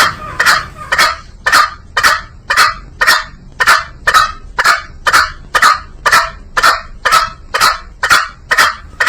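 Green junglefowl calling: short, sharp calls repeated evenly at about two a second.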